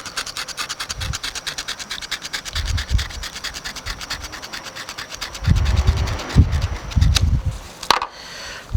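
A dull razor blade sawing through locked-up seat belt webbing in rapid, scratchy back-and-forth strokes. Near the end the scraping gives way to a few low bumps and handling sounds.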